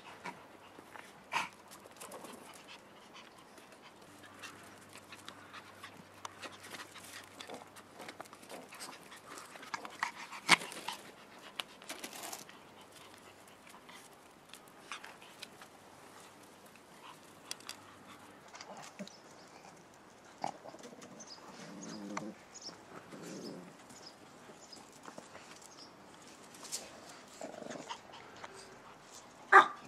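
Pomeranian puppies playing, with scattered short sharp yaps and small scuffling noises between quiet stretches, the loudest yap just before the end.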